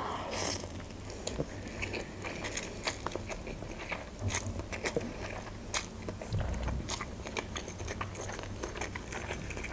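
A person eating instant noodles close to the microphone: chewing with many small, irregular wet clicks.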